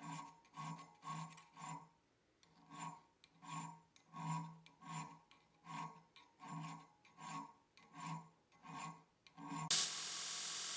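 Hand file rasping on steel in even back-and-forth strokes, about two a second, with a short pause about two seconds in. Near the end the filing stops and a steady hiss begins.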